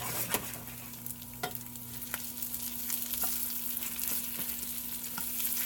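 Sliced onions sizzling in a stainless steel skillet while a metal spoon stirs them, with scattered clicks of the spoon against the pan. The sizzle grows stronger toward the end.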